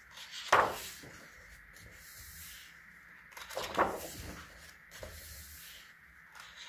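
Thick paper pages of a coloring book being turned by hand: two quick swishing page flips about three seconds apart, with light paper rustling between.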